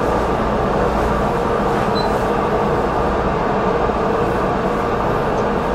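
Steady hum of cooling fans in running bench test equipment, a constant drone with several steady tones in it.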